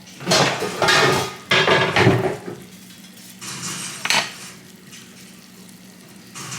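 Metal utensils clattering against a frying pan in three loud spells during the first four seconds, over the quieter sizzle of frying.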